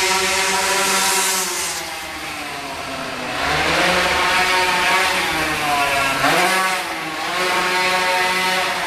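Go-kart engine revving hard and easing off through the turns of a lap. The pitch drops about two seconds in, climbs again from about three and a half seconds, and falls briefly twice near the end before picking up.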